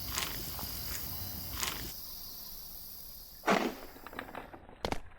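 Insects chirring steadily outdoors, cutting off abruptly about four and a half seconds in. A brief loud rustle comes about three and a half seconds in, and two sharp clicks near the end.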